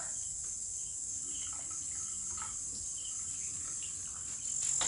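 Crickets chirring in one steady, high, unbroken trill, with a few faint knocks underneath.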